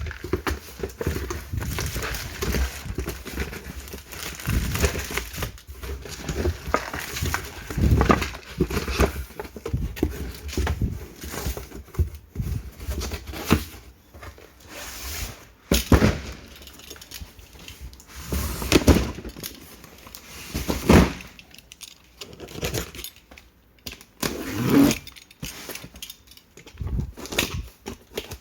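Instant noodle packaging being handled and torn open: plastic wrap crinkling and tearing, with cardboard rustling and scattered knocks.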